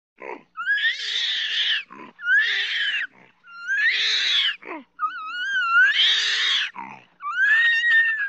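An orangutan screaming: a run of five shrill, strained cries about a second long each, their pitch sliding up or wavering, with a short harsher sound between each cry.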